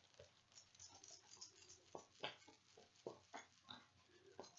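Near silence, with faint scattered soft clicks and rustles.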